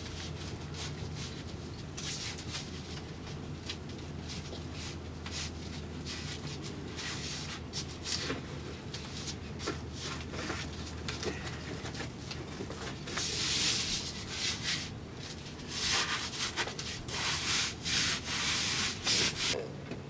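Hands rubbing and smoothing insulation sheets against a boat's hull in irregular scraping strokes, with louder, longer strokes in the second half. A steady low hum runs underneath.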